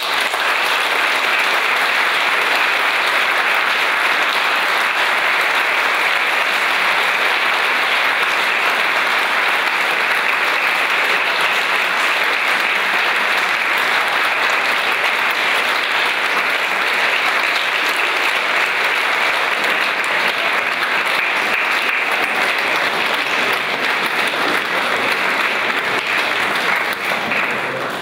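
Audience applauding: dense, steady clapping that starts at once and tails off near the end.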